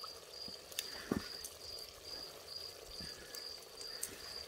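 An insect chirping steadily and high-pitched, about two chirps a second, with a few soft pops and clicks from the stew simmering in its clay pot.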